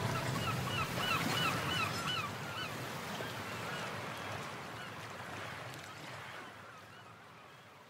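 Background music fading out: a quick run of short, repeated chirping notes in the first two or three seconds, then a fading wash that dies away to silence.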